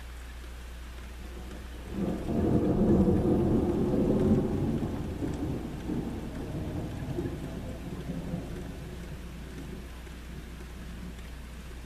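Thunder rumbling over steady rain: the rumble breaks in sharply about two seconds in, is loudest for the next couple of seconds, then rolls away and fades over several more seconds.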